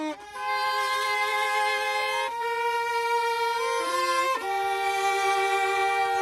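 Fiddles playing a slow hymn-like melody in long held notes, with two or three notes sounding together and changing every second or two.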